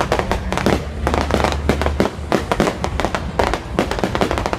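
Fireworks going off in a dense, continuous barrage of sharp bangs and crackles, several a second.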